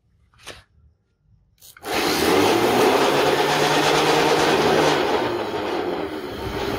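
Molten brass being poured into a hot plaster investment mold: a loud, steady rushing and crackling noise that starts suddenly about two seconds in and eases slightly near the end, with a faint low hum underneath. A few light clicks come before it.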